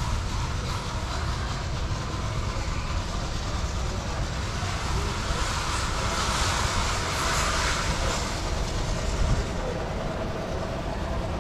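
Steady rumble and hiss of vehicle traffic, swelling for a few seconds around the middle as something larger passes.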